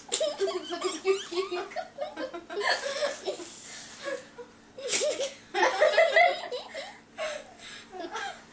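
Two girls laughing and giggling in bursts with their mouths stuffed with mini marshmallows, the laughter loudest about six seconds in.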